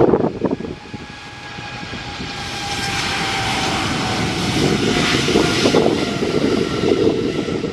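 Boeing 777-300ER jet engines spooling up to takeoff thrust on the takeoff roll: a rumble and rushing roar that swells over the first few seconds and then holds, with a thin engine whine that slides slightly lower. Brief wind gusts buffet the microphone at the start.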